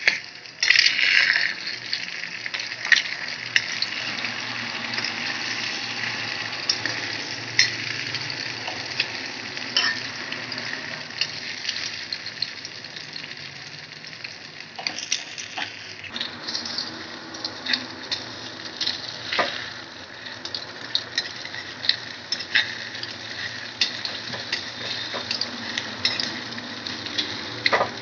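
Eggs frying in hot oil in a metal kadai, sizzling steadily, loudest about a second in. Throughout, a slotted metal spatula scrapes and clinks against the pan as the eggs are scrambled.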